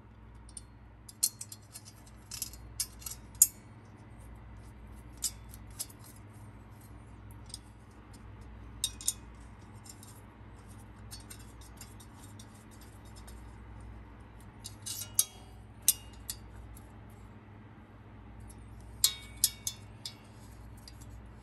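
Small metallic clicks and clinks in scattered clusters, strongest about 3 s in, about 15 s in and near the end: an Allen key turning the mounting bolt of a steel lifter spider tray in the cast-iron lifter valley of a Ford small-block, with metal tapping on metal.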